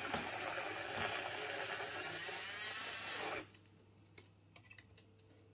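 Automatic coffee machine running as it makes a cappuccino, a steady hissing, crackling noise that cuts off suddenly about three and a half seconds in, followed by a few faint clicks.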